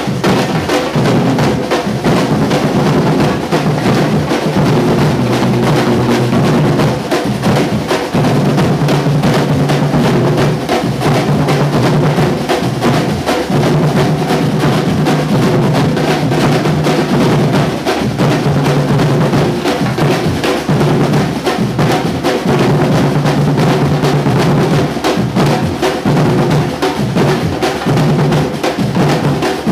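Afro-Brazilian batuque drum group playing a loud, continuous groove: deep bass drums under fast, dense strokes of higher drums.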